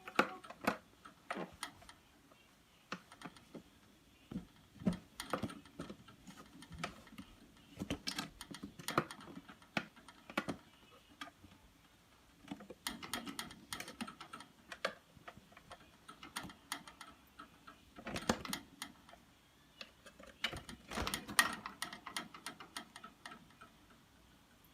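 Irregular light clicking and tapping in clusters of a few seconds, with short quiet gaps between them, much like typing.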